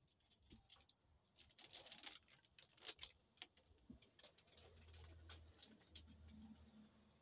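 Faint rustling and scattered clicks of someone moving close to the microphone, with a low steady hum for about a second and a half past the middle.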